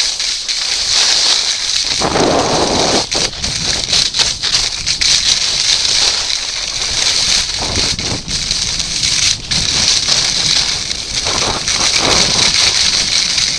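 Edges sliding and scraping on groomed snow on a fast run down a ski slope: a steady loud hiss. Wind buffets the goggle-mounted camera's microphone, adding gusts of low rumble and a few knocks.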